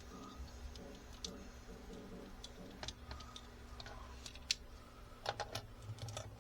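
Faint, scattered light clicks and taps of a plastic transforming robot action figure being handled and posed, its parts knocking as the limbs are moved, more frequent in the second half.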